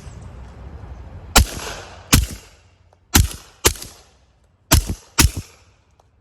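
Six suppressed shots from an HK USP Tactical .45 ACP pistol fitted with a SilencerCo Osprey 45 suppressor. Each report is sharp and dies away quickly, and the last four come in quick pairs.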